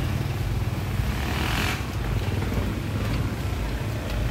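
Street traffic: a steady low engine rumble, with a hiss that swells and fades about a second and a half in.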